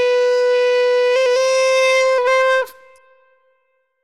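A voice held on one long note through hard autotune, pitch-locked dead flat so that it sounds reedy and horn-like. It wobbles up a step twice, then cuts off about two and a half seconds in.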